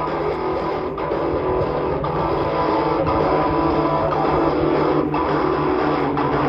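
Music with guitar and steady held notes, playing continuously.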